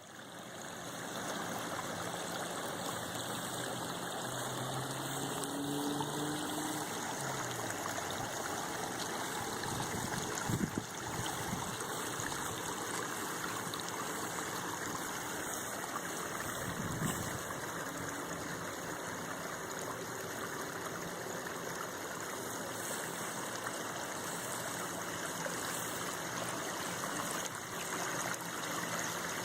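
Water pouring steadily over the two spillways of a pondless waterfall, a continuous splashing trickle, with a brief thump about ten seconds in.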